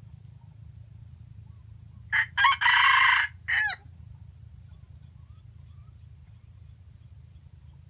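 A junglefowl (wild chicken) rooster crows once about two seconds in: two short notes, a long middle note, then a short falling final note.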